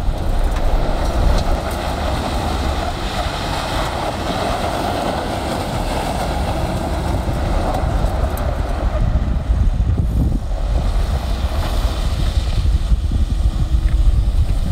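VW Amarok's 3.0-litre V6 TDI diesel pickup driving over loose quarry gravel: a steady low rumble of engine and drivetrain with a rushing hiss of tyres on stones.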